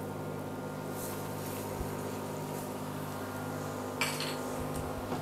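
Olive oil and flour sizzling and bubbling in a stainless steel pan with freshly added grated garlic, over a steady low hum. About four seconds in, the spatula knocks once against the pan.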